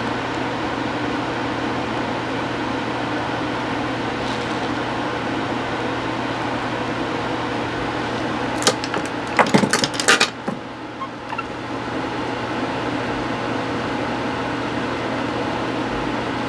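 Steady mechanical hum, like a fan or air conditioner running. About nine seconds in comes a short cluster of sharp clicks and knocks.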